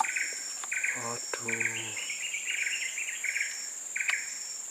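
Swamp insects chirping: clusters of rapid pulsed chirps, over a steady high-pitched insect whine.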